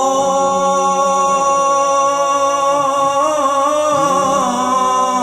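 Male voice chanting an Islamic ibtihal (devotional supplication), holding one long drawn-out note with a wavering ornament partway through.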